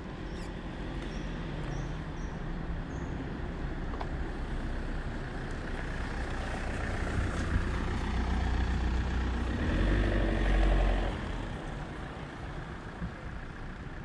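A motor vehicle drives past close by. Its engine and road rumble build up, peak about ten seconds in, then fade.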